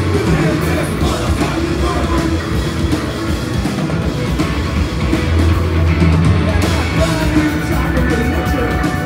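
Post-punk band playing live at full volume: electric guitars, bass and drums, heard from the crowd.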